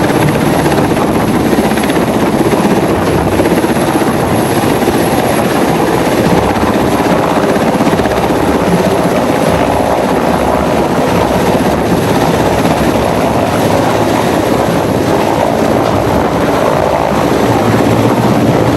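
Mi-17 helicopter hovering low overhead: loud, steady rotor and turbine engine noise with a thin high whine above it.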